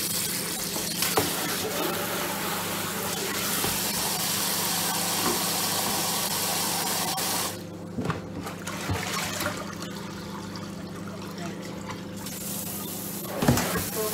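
Kitchen tap running into the sink as things are rinsed out, shut off about seven and a half seconds in, then a few knocks and clinks of dishes in the sink. A steady low hum runs underneath.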